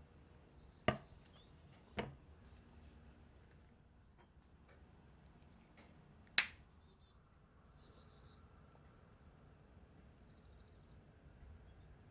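A glass serving plate and a metal spoon clinking on a countertop: three sharp knocks, about one second in, two seconds in, and the loudest about six seconds in. Faint bird chirps throughout.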